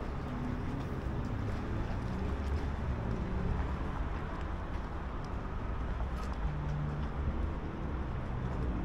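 Low, steady engine rumble with a hum that shifts in pitch.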